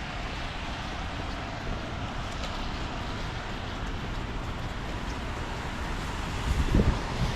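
Steady hiss of rain and wet-street city traffic, with a few low buffets of wind on the microphone near the end.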